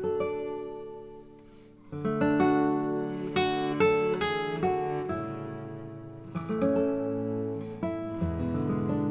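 Background music: an acoustic guitar playing plucked notes and strummed chords, fading almost away about a second in before fuller chords come back in about two seconds in.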